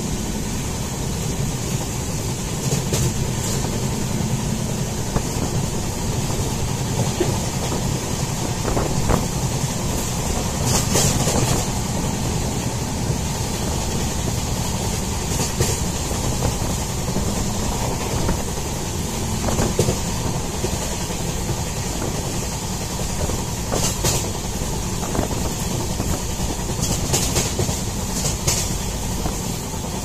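A passenger train running along the track, heard from inside a moving coach: a steady rumble of wheels on rails with a few short clacks scattered through it.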